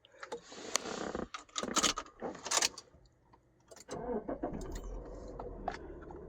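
Keys jangling and clicking as the newly cloned transponder key for a 2010 Subaru Outback is worked into the ignition and turned. About four seconds in, a steady low hum of the car running begins.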